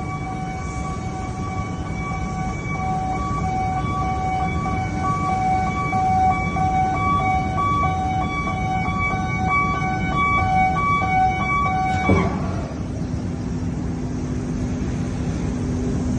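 Heavy steel-plant noise: a loud, low, steady roar, with a siren-like warning tone held for about twelve seconds that breaks off and slides down in pitch, followed by a lower steady hum.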